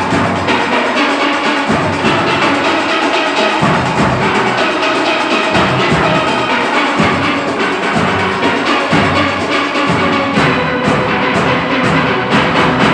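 A full steel band playing loudly: many steelpans sounding dense, fast melodic lines, with low bass-pan notes coming in and out underneath.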